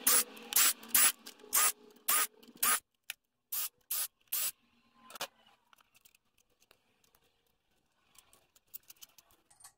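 Hand-held power driver run in short bursts, about two a second, spinning out the loosened T30 Torx bolts of an automatic transmission's valve body. The bursts end a little over four seconds in, leaving only faint clicks of parts being handled.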